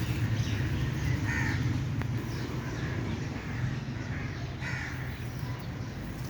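A few short animal calls, over a steady low rumble.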